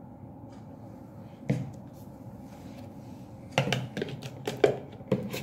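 Clear plastic measuring jugs knocking and clacking against each other and the table as they are handled: one knock about one and a half seconds in, then a quick run of knocks and clicks near the end.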